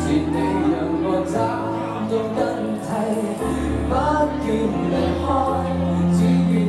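Live pop band playing a song: several voices singing over keyboard and guitar, with a steady low bass line.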